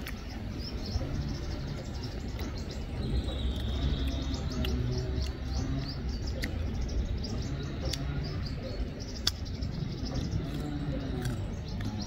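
Small birds chirping in quick repeated high calls over a steady low background, with one sharp click a little after nine seconds in.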